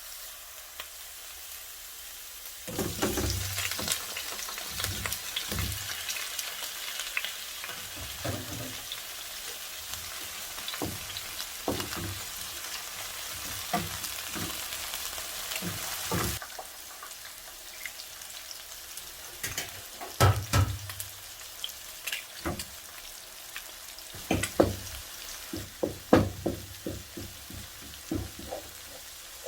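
Food sizzling in a frying pan, with the sizzle louder for the first half, while a utensil repeatedly knocks and scrapes against the pan as the food is stirred.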